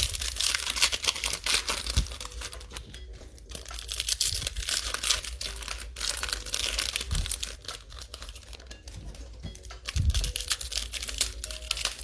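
Trading-card pack wrappers being torn open and crinkled as cards are handled: dense, uneven crackling and rustling, with a few dull thumps.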